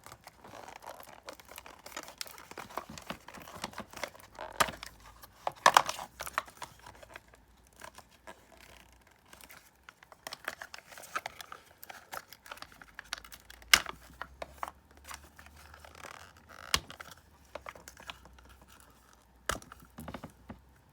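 Packaging wrappers being torn open and crinkled by hand, with scattered crackles and a few louder sharp snaps.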